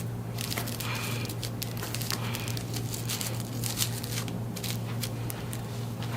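Scattered rustling and crackling from hands, straps or fabric being handled, over a steady low hum.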